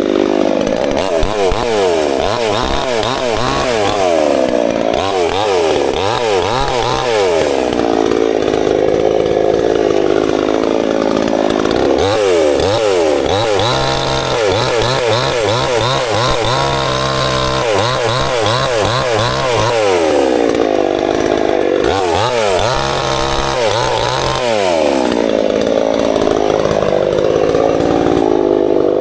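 Chainsaw running throughout at high revs. Several times its note falls away and climbs back, as the engine is loaded by cutting through branches.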